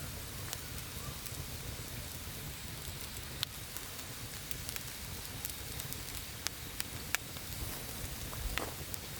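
Firewood burning in a camp fire bowl, crackling with sharp pops about once a second over a steady hiss.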